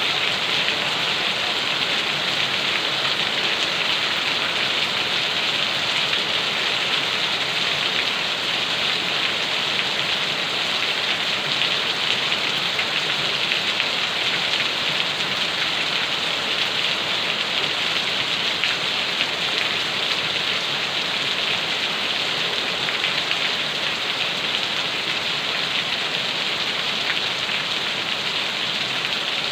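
Steady rain falling and pattering on a surface, with no change in strength.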